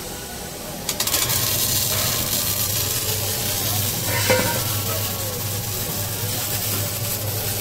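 Automatic arc welder welding a steel pipe: the arc strikes about a second in, then crackles and hisses steadily over a low hum.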